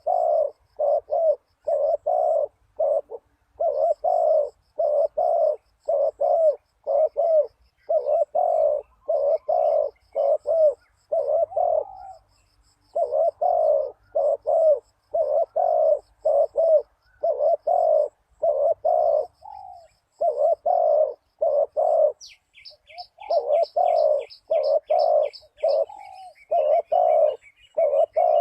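Spotted dove cooing over and over in quick runs of notes with short breaks between phrases. Faint high chirps of small birds sound behind it, and another bird gives a fast high trill for a few seconds near the end.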